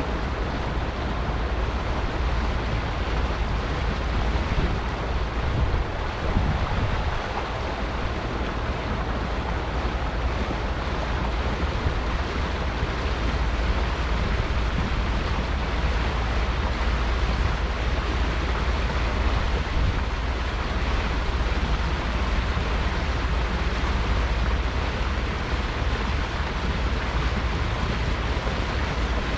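Steady wind rumble on the microphone over the rush of water from a motor cruiser under way.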